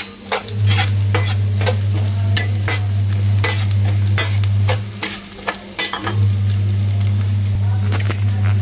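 A metal spatula scrapes and stirs chopped onion and cumin seeds frying in hot oil in a nonstick pan, with a light sizzle, while the onion browns. A steady low hum runs underneath and drops out twice, near the start and about five seconds in.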